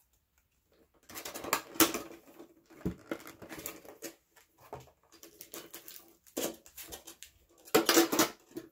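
Hands handling a metal Pokémon card tin and its clear plastic pack tray: irregular crinkling, rustling and light clattering that begins about a second in, with louder bursts about two seconds in and near the end.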